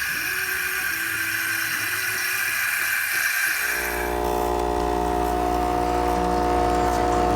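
Saeco Incanto espresso machine's milk frother hissing as it dispenses foamed milk. About halfway through, a louder steady machine hum with several held tones takes over as the machine moves to the coffee stage.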